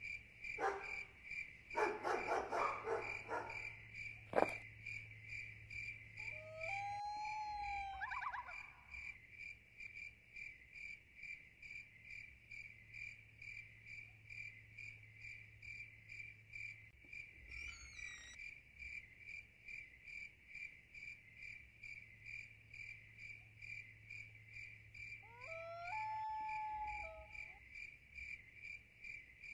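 Cricket-like insect chirping in a steady, even, rapid pulse. Three short gliding calls rise above it, and a few clicks and rustles come in the first seconds, with one sharp click about four seconds in.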